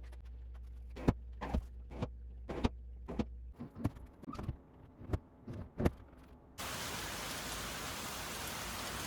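Light knocks and clicks over a low hum, then about six and a half seconds in a loud, steady hiss starts abruptly and holds.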